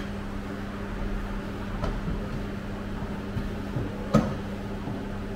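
A steady low electrical hum of workshop equipment, with a single sharp click about four seconds in.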